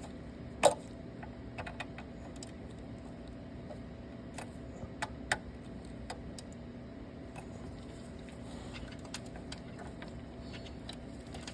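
Scattered small clicks and taps of a small screwdriver and wire ends being worked into a control panel's screw terminals, with one sharper click about a second in, over a steady low hum.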